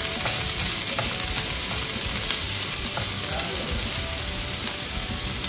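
Chopped onions and green chilies sizzling steadily in hot coconut oil in a nonstick frying pan as a silicone spatula stirs them, with a few sharp little ticks.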